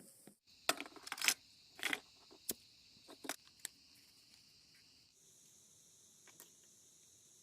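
Small hard parts being handled, a quick run of clicks and light rattles over about three seconds, then only a faint steady hiss.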